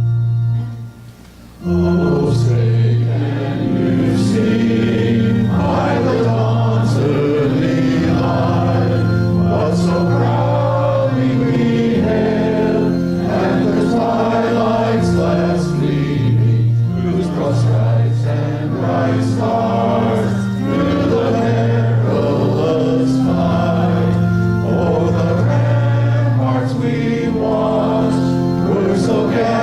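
Congregation singing a hymn to organ accompaniment. The organ plays alone at first, drops off briefly about a second in, and the singing comes in with it about two seconds in.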